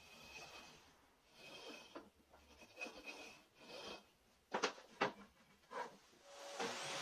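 Wooden clamp jaw block sliding back and forth along a hardwood bar, rubbing with a faint squeak in four strokes. Then two sharp wooden knocks and a lighter third one as the wood is handled on the bench; near the end a table saw starts running.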